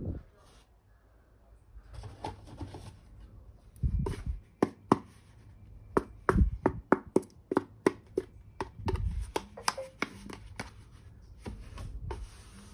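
Small plastic toy pieces being handled and set down. There are a few soft rustles first, then from about four seconds in a quick run of sharp clicks and taps with a few dull knocks.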